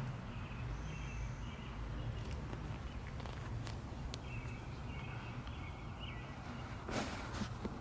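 Faint outdoor ambience: small birds chirping and twittering over a low steady hum, with a brief rustle about seven seconds in.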